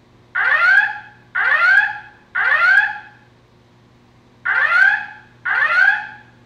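Building fire alarm voice-evacuation system sounding its whoop alarm tone between spoken messages: three rising whoops about a second apart, a pause of about a second and a half, then two more whoops, with another starting at the very end. The whoops come in groups of three, the temporal-three evacuation pattern.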